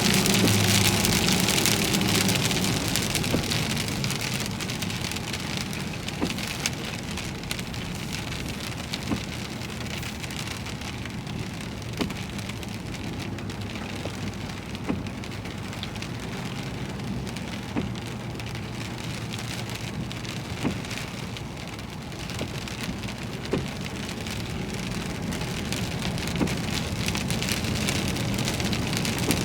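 Heavy rain falling on a vehicle, heaviest at first, easing through the middle and building again near the end. A sharp tick comes about every three seconds.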